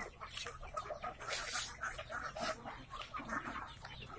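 A flock of free-range village chickens (ayam kampung) clucking, many short calls overlapping.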